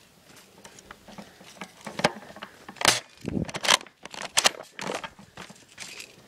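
Irregular rustling and crunching of dry leaves and brush underfoot as an airsoft player moves, with a few louder crackles.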